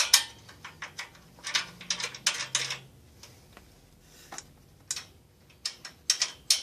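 Irregular metal clicks, taps and scrapes as a nut is threaded by hand onto a cab-mount stud, left loose, holding a steel side armor bracket. The clicks come in clusters: at the start, through the middle and near the end.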